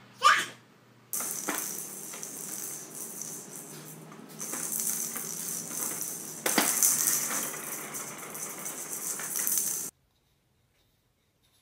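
A baby's short rising squeal, then several seconds of hissy rattling that cuts off abruptly.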